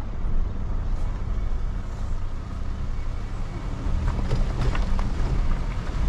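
Car driving on an unpaved gravel track: a steady low engine and tyre rumble, with a few light knocks from the rough surface.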